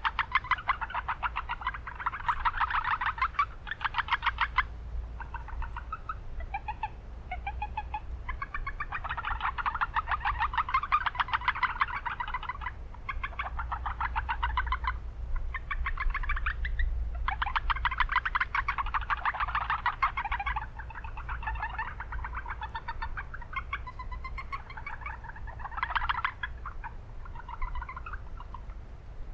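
Japanese brown frogs (Rana japonica) calling in chorus: rapid trains of short pulses in bouts of a second or two that overlap one another. Under them runs a steady low rumble of town noise.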